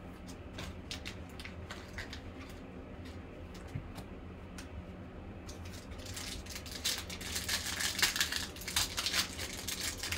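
Foil wrapper of a 2020 Panini Select football card pack crinkling and tearing as it is opened by hand, the crinkling starting about six seconds in. Before that, light clicks and rustles of cards being handled.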